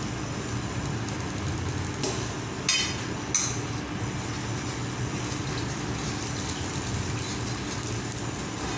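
Steady low hum of a kitchen stove running under a pan of oil heating up, with two short metallic clinks of a utensil against the pan about three seconds in.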